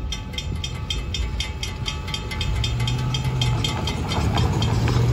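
Railroad grade-crossing warning bell ringing in quick, evenly spaced strokes while the crossing gates rise after the train has passed; the bell stops a little past halfway. A low steady engine hum comes in and grows louder in the second half.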